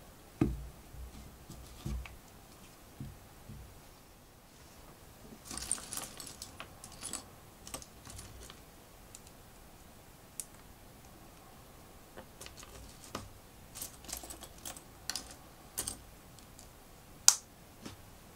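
Plastic LEGO pieces being handled and clicked together: irregular sharp clicks, with a spell of rattling among loose pieces about five seconds in and the loudest click near the end.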